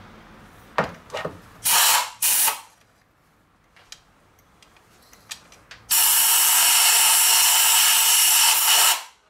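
A handheld power tool's motor runs in two short bursts about two seconds in, then holds a steady whine for about three seconds before stopping, driving out a spark plug.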